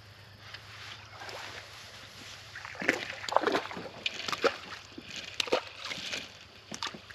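Water splashing and sloshing close by at a kayak, with irregular clicks and knocks, busiest from about three seconds in to near the end.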